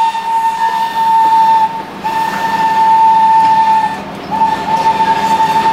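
Locomotive whistle blowing one steady note in long blasts, broken briefly twice.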